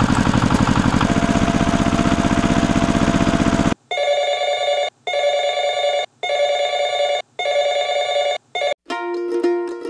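An engine sound chugging in a rapid steady pulse cuts off suddenly a little over a third of the way in. A telephone ringtone then rings in bursts of about a second each, four or five times with short breaks. Plucked-string music starts near the end.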